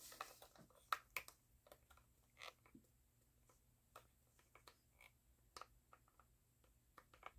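Faint, irregular small clicks and taps of plastic parts of an electric nail drill being handled and pushed together while someone tries to make a piece click into place.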